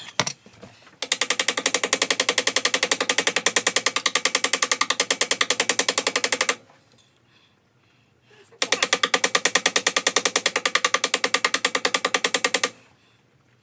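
Electric welding arc laying two weld runs on a motorcycle frame, about five seconds and then about four seconds, each with a rapid, even buzzing pulse; the arc stops between runs.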